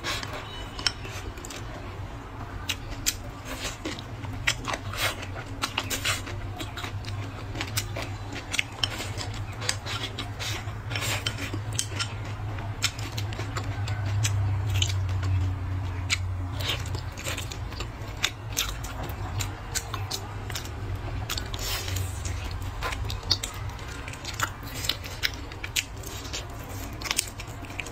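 Close-up eating sounds: wooden chopsticks clicking and scraping against a ceramic bowl, with biting and chewing of food, many sharp little clicks throughout. A low hum swells in the middle.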